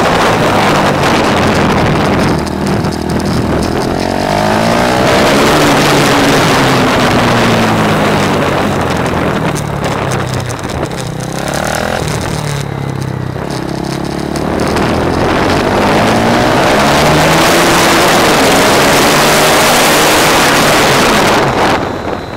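KTM Duke single-cylinder motorcycle engine revving hard and then easing off through corners, its pitch rising and falling with throttle and gear changes, under steady wind rush on the microphone. The throttle closes and the engine note drops away near the end.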